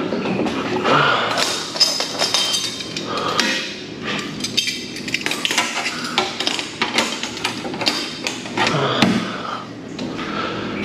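Repeated metallic clanks, taps and clicks on a stainless steel bulk milk tank as gloved hands work at its lid and fittings.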